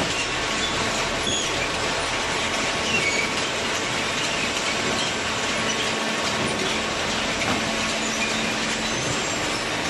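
Automatic cardboard baler running with a steady mechanical noise, a low hum and a few faint, short high squeaks.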